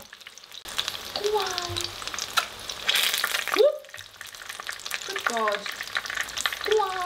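Accras fritters deep-frying in about a centimetre of very hot oil, the oil sizzling and crackling steadily with many small pops. A louder spit of oil comes about halfway through.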